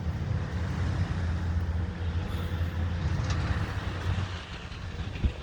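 A motor vehicle's engine running steadily with a low hum that fades out about four seconds in, followed by a single knock near the end.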